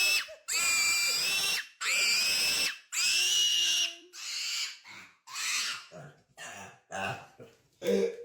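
Piglet squealing over and over in long, high-pitched squeals about a second each, roughly one a second. After about halfway the squeals turn shorter and fainter.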